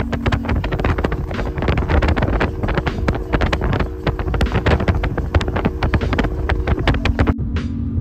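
Riding in a road vehicle: a steady engine drone and road rumble under dense, crackling wind buffeting on the microphone. Near the end it cuts abruptly to a steadier, quieter rumble inside a coach.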